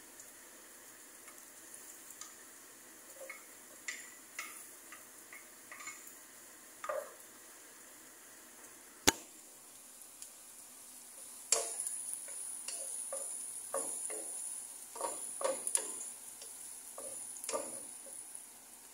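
Chopped onion and garlic sizzling in oil in a nonstick pan, stirred with a wooden spatula that knocks and scrapes against the pan. The sizzle grows louder and steadier from a little past halfway, with one sharp click just before it.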